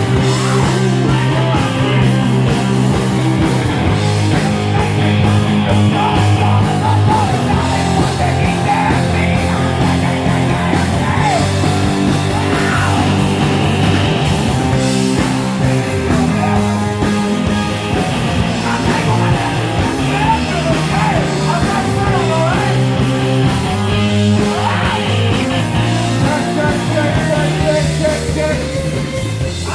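Loud live rock band playing: amplified instruments, with voices singing or yelling at times.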